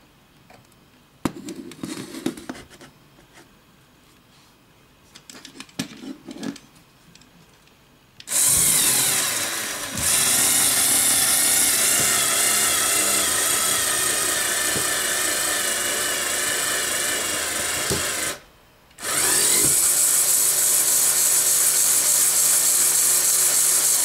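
Lego Technic electric motor driving a gear train and worm screw, running with a high whine and gear chatter: it runs for about ten seconds with a brief dip, stops, and starts again a second or so later. Before the motor starts there are a few light clicks and rattles of the parts being handled.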